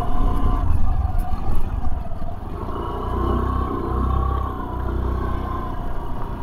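Suzuki Burgman Street 125 scooter's single-cylinder engine running while riding over a rough road, a steady whine that wavers slightly over a low rumble.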